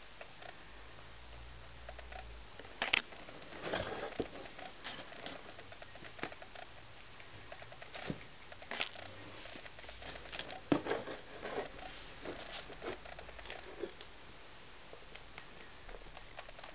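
Two lop-eared rabbits crunching a snack from a ceramic bowl: quick, fine chewing, with scattered sharper clicks and rustles from the food and bowl, the two loudest a few seconds in and about two-thirds of the way through.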